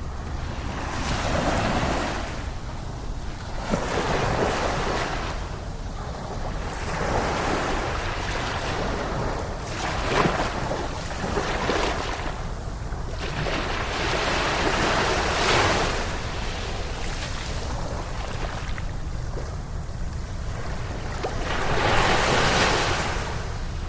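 Ocean waves breaking and washing up a beach, the surf swelling and falling back every two to three seconds over a steady low background noise.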